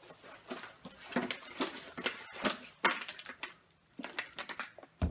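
Full plastic water bottles being juggled: irregular taps and crinkles as the bottles slap into the hands, with one heavier thump near the end.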